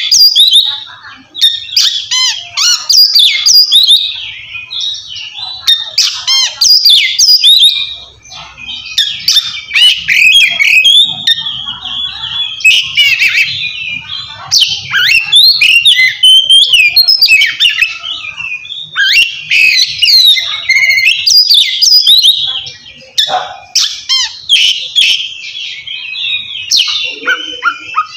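Oriental magpie-robin (kacer) singing a loud, fast, varied song of clear whistles, gliding notes and rapid trills with harsher notes mixed in, nearly without pause. This is the open 'ngeplong' song style, used to call out a rival.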